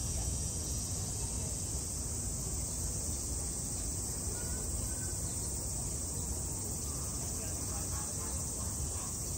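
A steady, high-pitched insect chorus over a low background rumble.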